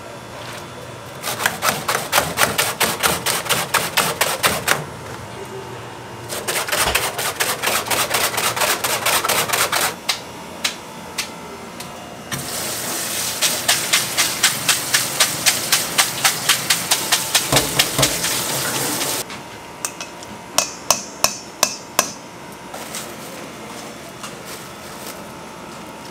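Rapid, rhythmic knocks of a kitchen utensil on a hard surface, about four a second, in three runs of several seconds. A steady hiss runs under the third run, and a handful of single sharp knocks follow.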